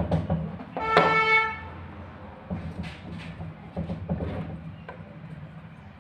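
A short horn-like toot about a second in, over a low steady hum, followed by scattered light clicks and knocks of plastic parts being handled.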